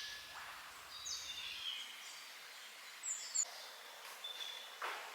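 Faint forest birdsong: several short high whistles and chirps over quiet rainforest ambience.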